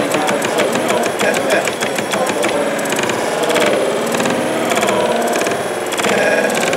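Small model stationary engine running, its big aluminium flywheel spinning, with a fast, even mechanical clatter whose rhythm changes about two and a half seconds in.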